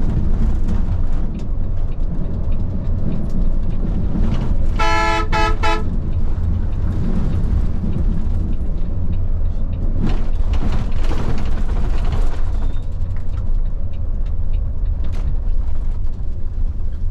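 Bus running on the road with a steady low engine and road rumble. About five seconds in, a vehicle horn sounds three quick toots, and a broader rush of traffic noise swells around ten to twelve seconds in.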